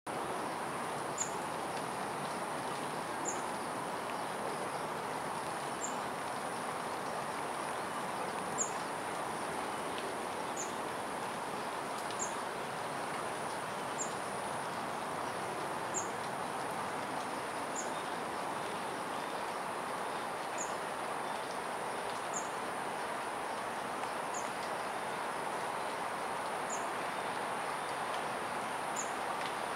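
Garden ambience: a steady high insect drone over a constant broad background hum, with a short high chirp repeating about every two seconds.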